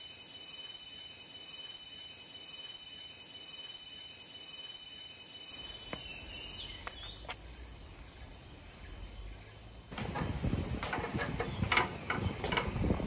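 Quiet outdoor ambience with a steady, high, thin insect trill through the first half. From about ten seconds in, louder irregular knocks and footfalls as someone climbs a metal-framed staircase.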